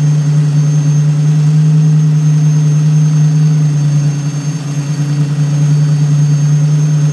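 GM 3.4 L 60-degree V6 with throttle-body fuel injection idling steadily, with a thin high whine running over it.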